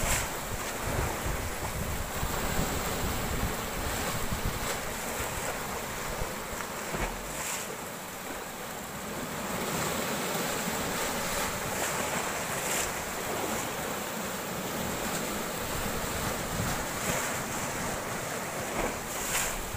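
Big waves breaking and washing over shore rocks: a steady rush of foaming surf, with wind rumbling on the microphone.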